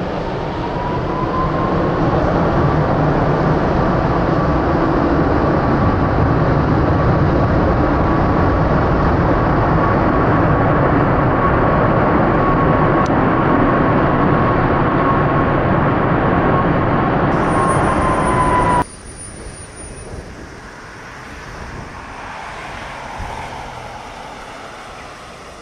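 Boeing 767 freighter's jet engines in reverse thrust on landing rollout: a loud, steady rushing noise with a high whine on top. It cuts off abruptly about 19 seconds in, leaving a much quieter rushing noise.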